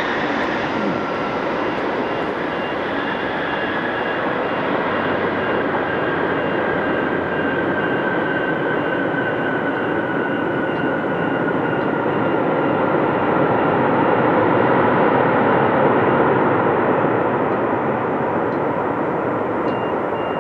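Boeing 747-400 Dreamlifter's four turbofan engines running loud during the landing rollout. The roar holds steady and swells a little in the middle, with a turbine whine slowly falling in pitch. A high beeping repeats faintly in the background for much of it.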